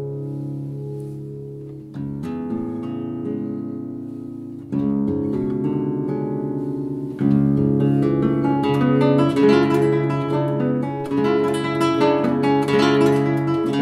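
Nylon-string classical guitar played solo: ringing chords struck about 2, 5 and 7 seconds in, each left to sustain, then a quicker run of plucked notes over held bass notes from about 7 seconds on, getting louder.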